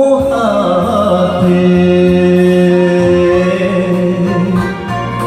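Enka music near the close of the song: the backing track plays long held notes, with organ-like tones.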